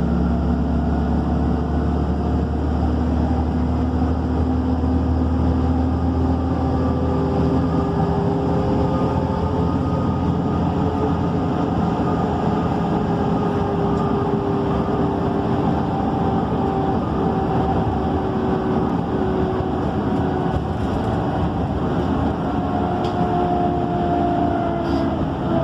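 MAN Lion's City city bus heard from inside while driving: a steady engine and road drone with several tones that slowly glide up and down in pitch. A deep low hum is strong for the first several seconds, then fades.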